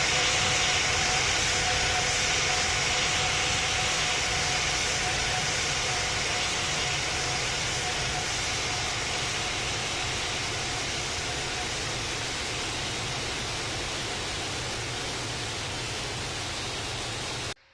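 Boeing 787 airliner's jet engines and airflow: a steady, loud rushing roar with a low rumble and a faint steady hum, slowly getting quieter, then cut off suddenly near the end.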